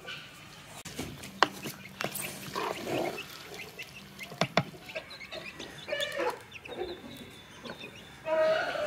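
Chickens clucking, with a metal ladle knocking and scraping in a clay cooking pot, giving a few sharp clinks.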